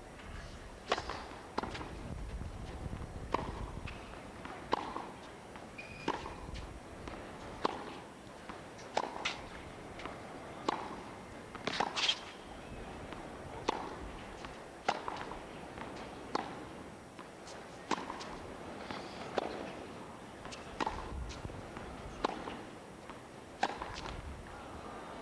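Tennis balls being struck by rackets and bouncing on a hard court, sharp hits coming roughly every second or so.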